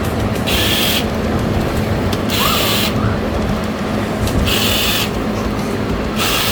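Repeated scraping or rubbing strokes from a hand tool, each about half a second long and one every couple of seconds, over a steady low rumble.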